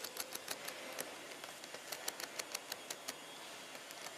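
Light, irregular clicking, several clicks a second, of small metal nuts being twisted off the bolts of a plastic junction box by hand.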